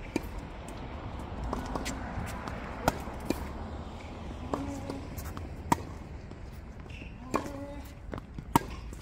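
Tennis rally on a hard court: four sharp pops of a racket striking the ball, about three seconds apart, with fainter ball bounces and footsteps between. Short vocal sounds come between the shots.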